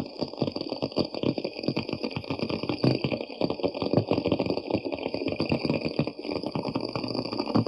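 Crabs making a dense, irregular crackling of rapid clicks, over a steady high hiss.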